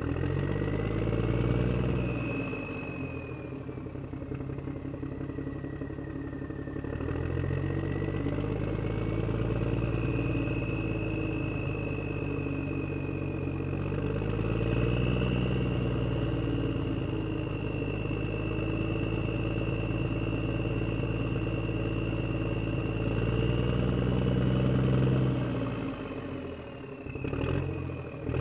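Heavy truck engine running, revving up and settling back down several times, with a high whine gliding above it; the sound dips briefly near the end.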